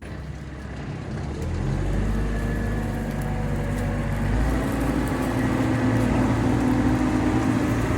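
A digger's diesel engine running under work, its note stepping up a couple of times.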